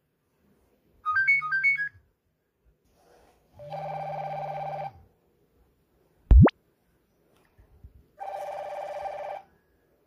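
Nokia 6016i ringing for an incoming call with a monophonic ringtone. About a second in, a quick run of high beeping notes steps up and down. Two longer buzzy tones follow, and a short, sharply rising sweep just past the middle is the loudest sound.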